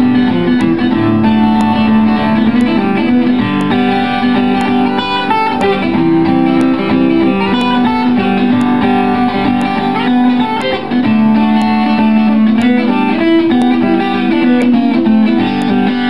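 Solo acoustic guitar playing an instrumental piece, with picked melody notes over sustained low notes.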